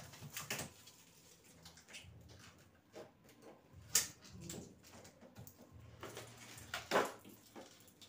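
Plastic fittings and doors of a new double-door fridge being handled: a few sharp clicks and knocks, the loudest about four seconds in and a second before the end.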